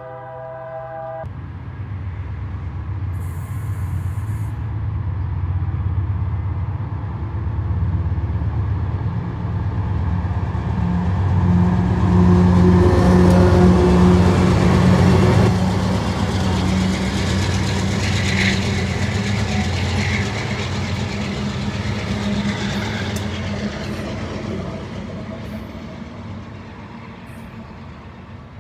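The air horn of a GE AC4400CW freight locomotive stops about a second in. Then the diesel engines of the locomotive consist rumble, growing louder as the units pass close by, loudest midway, then fading as they move off.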